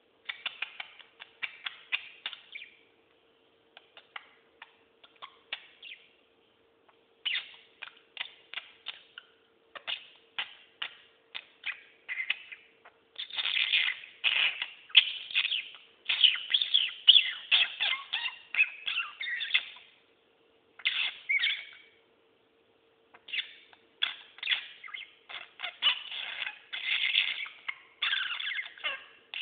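A budgerigar warbling and chattering: fast runs of chirps, squeaks and clicks in bursts of a few seconds with short pauses, busiest in the second half.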